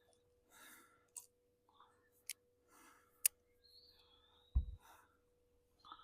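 Quiet handling noise: a few sharp clicks, a soft low thump about three-quarters through, and faint breaths in between, over a faint steady hum.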